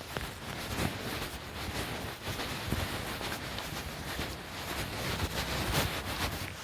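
Wind buffeting the microphone outdoors, a low rumble with irregular rustling crackles.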